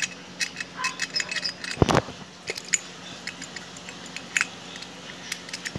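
Metal clicks and jingles of a round brass padlock and its key being handled, with the key working in the lock. One louder knock comes about two seconds in.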